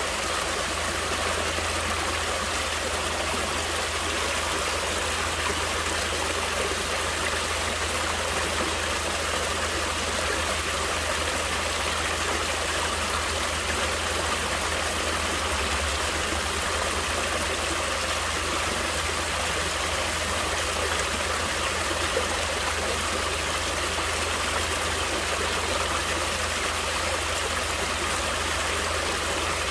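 Natural stream water flowing, a steady, even rush with no change in level.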